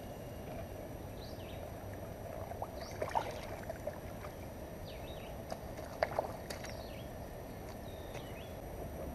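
Water splashing as a catfish is released by hand into shallow river water, with sharp splashes about three seconds in and again, loudest, around six seconds. Small birds chirp over a steady outdoor background.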